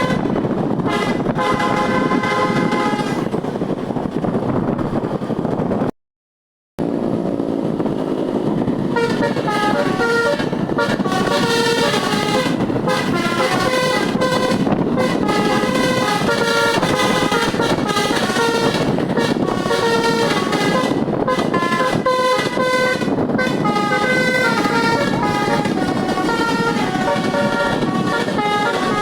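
Telolet musical air horn on an AMT Trans bus playing melodies: quick runs of short notes, several tones sounding together and stepping up and down in pitch, over engine and road noise. The sound cuts out completely for under a second about six seconds in, then the horn tunes carry on.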